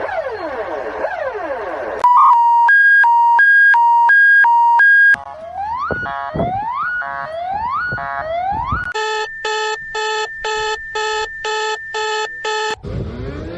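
A sequence of electronic emergency-alert alarm tones. It starts with repeated falling sweeps. About two seconds in, a loud two-tone beep alternates between a low and a high pitch for about three seconds. Then come four rising whoops, followed by eight even beeps at about two a second, and a rising sweep near the end.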